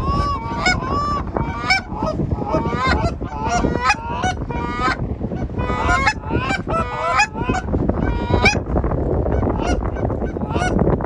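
Canada geese honking and clucking, many short calls overlapping densely, over a steady low wind rumble on the microphone. The calling stops about three-quarters of the way through.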